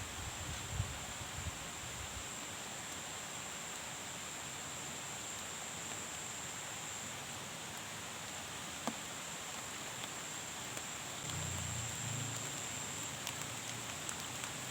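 Steady rain falling, an even hiss, with a thin high steady tone running over it.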